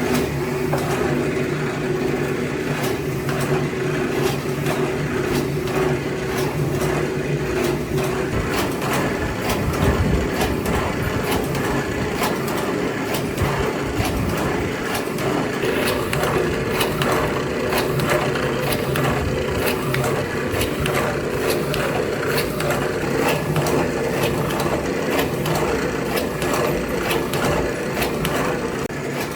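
A small workshop machine running steadily, with a motor hum and a constant run of rapid small clicks and knocks.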